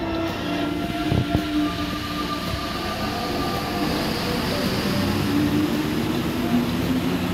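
Rubber-tyred Paris Métro Line 14 train pulling out of the station, running with a steady whine over a rumble, with a couple of low thumps about a second in.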